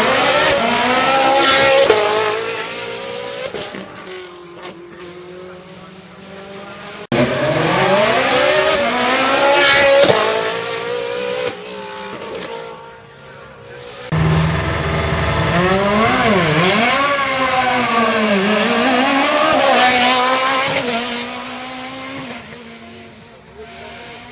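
Race car engine at full throttle, revving up steeply through the gears under hard acceleration. After a cut about seven seconds in, another hard acceleration follows. From about fourteen seconds in, the engine note drops and climbs again several times with gear changes.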